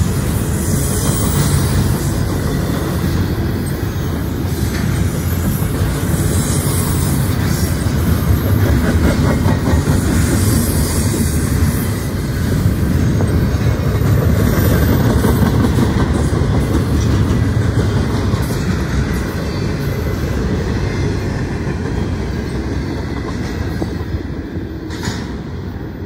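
Double-stack container well cars of a Norfolk Southern intermodal train rolling past close by: a steady rumble of steel wheels on rail that eases off near the end as the last cars go by.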